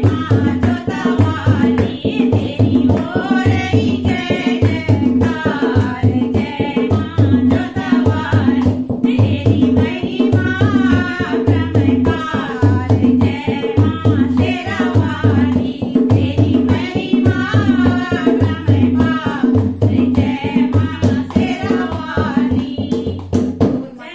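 Two women singing a Hindi devotional song (bhajan) to a steady dholak beat, with hand claps. The song stops abruptly at the very end.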